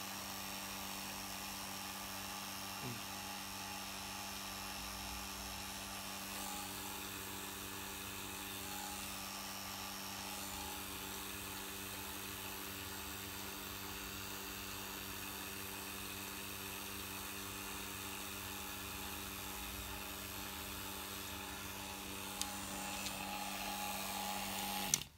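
Small electric vacuum pump running steadily, a motor hum and whirr, pumping air out of a glass-bottle discharge tube through its hose. A few handling clicks come near the end, then the sound cuts off abruptly as the pump is switched off.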